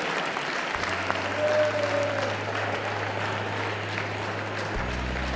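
Audience applauding steadily. Low bass notes of background music come in about a second in and change near the end.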